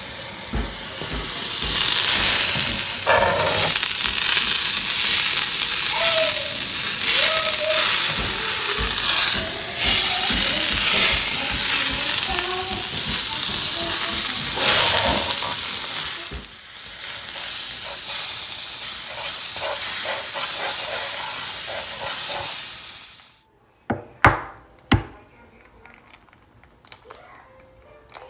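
Eggs frying, a loud steady sizzle that cuts off suddenly about 23 seconds in, followed by a few sharp clicks.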